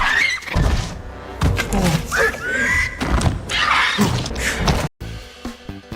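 Screeching calls of the Mutadon, a fictional winged hybrid dinosaur, as film sound design over a low rumble. The calls rise and fall in pitch. Upbeat rhythmic music takes over about five seconds in.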